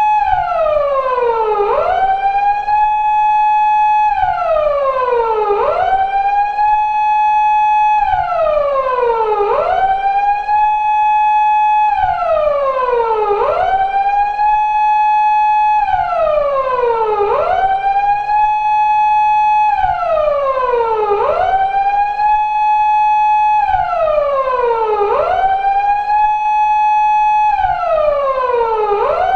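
Japanese police car siren of the 2000s type, as used on 170- and 180-series Toyota Crown patrol cars, sounding in its 4-second cycle. Each cycle holds a high tone, falls slowly in pitch, then sweeps quickly back up, and this repeats about seven times.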